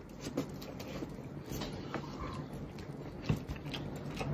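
Faint chewing and mouth sounds of a man eating chicken, with scattered soft clicks and smacks.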